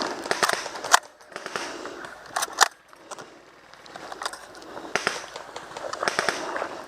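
Scattered sharp cracks and clicks of airsoft gunfire, a few single shots and short clusters, with a loud one about a second in and another about two and a half seconds in.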